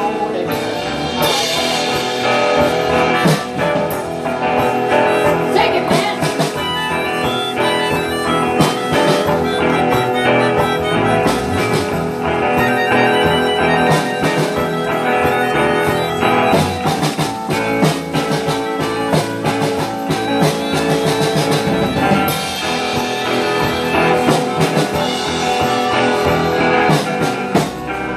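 Live band playing a guitar-led instrumental passage: several guitars over a steady beat.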